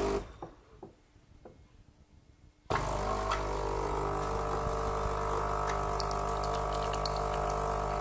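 Gaggia Brera espresso machine brewing a shot. A steady machine hum stops just after the start and a couple of faint clicks follow in near quiet. About 2.7 s in, the machine's vibratory pump starts abruptly with a steady buzz, pushing water through the ground coffee.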